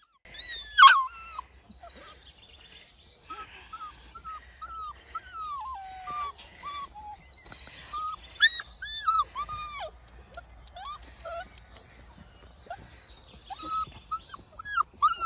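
Puppies whining and yipping in a string of short, high-pitched calls, one after another, with a loud yelp about a second in.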